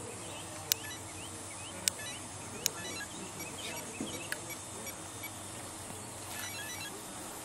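Quiet outdoor ambience with a steady background hiss and many short, faint high chirps, broken by three sharp clicks in the first three seconds as the model helicopter is handled.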